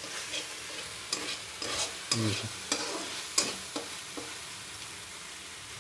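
Masoor dal cooking in a pot, with a steady sizzle and a spoon stirring and knocking against the pot in a few sharp clinks.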